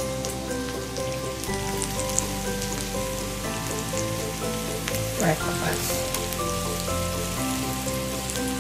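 Bacon and sausages crackling and sizzling on an electric griddle, under background Christmas music with held notes and a changing bass line.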